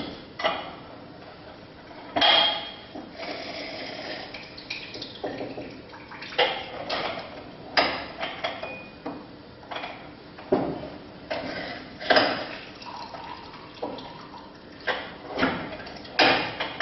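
Glassware and bar utensils clinking and knocking irregularly, with some liquid sounds, as a cocktail is prepared with pomegranate.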